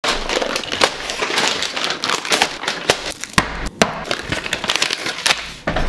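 Paper fast-food bags rustling and crinkling as they and heavy food cans are set down on a table, with a series of sharp knocks, the loudest around three and a half and five seconds in.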